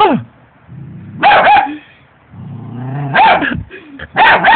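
Puppy barking in quick volleys of two or three high yaps. There is a falling yelp at the start and low growls before the later volleys.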